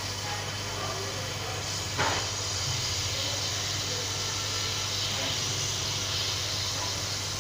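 Hot air gun running steadily, its fan blowing with a steady hiss and a low hum, heating the phone's edge to soften the touchscreen adhesive. A brief click about two seconds in.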